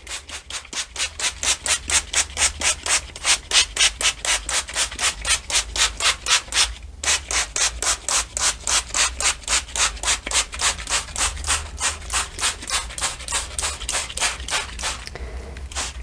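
Hand trigger spray bottle pumped rapidly, about four hissing sprays a second, misting water-and-vinegar solution onto fabric, with a brief pause about seven seconds in.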